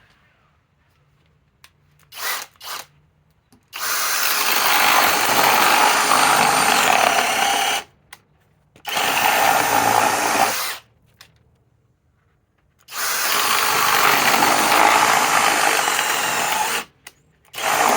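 Master Force Boost cordless hammer drill fitted with an 11/16-inch spade bit: two short trigger blips, then three long runs of several seconds each and a short one near the end, boring holes.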